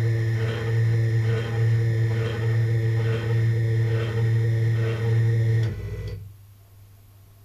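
Isel CNC milling machine running, its axis drives moving the spindle carriage: a steady, loud hum with several fixed tones that swells about once a second. It stops about six seconds in, with a short low rumble as it halts.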